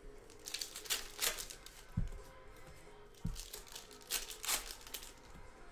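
Foil wrapper of a Panini Contenders football card pack crinkling and tearing as it is ripped open by hand, in two bursts of rustling, with two dull thumps in between.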